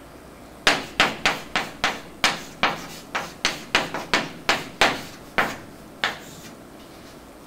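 Chalk knocking and scraping on a blackboard as formula symbols are written: a quick series of sharp taps, about three a second, starting under a second in and stopping about six seconds in.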